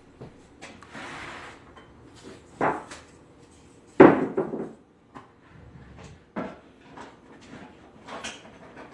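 Kitchen cabinet doors and dishes knocking and clattering in several separate bangs as a bowl is fetched from a cupboard, with a short rustle about a second in and the loudest bang about four seconds in.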